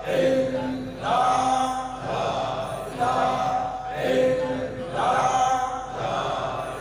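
Men's voices chanting a short devotional phrase over and over in a steady rhythm, about once a second: Sufi dhikr at a shrine's Urs gathering.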